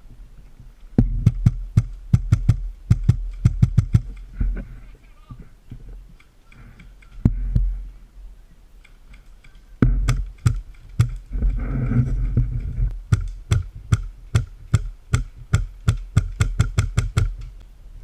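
Airsoft guns firing in rapid runs of sharp cracks, a few shots a second, in two long volleys: one about a second in and another from about ten seconds in to near the end. A low rumble of wind or handling noise on the microphone runs under them.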